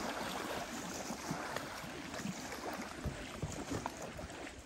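Steady rushing and lapping of river water, with a few faint knocks in the second half.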